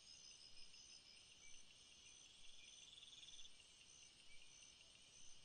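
Faint late-night jungle ambience of insects chirring together: a steady high-pitched chorus, one trilling voice swelling and fading partway through, and short high chirps repeating about every two-thirds of a second.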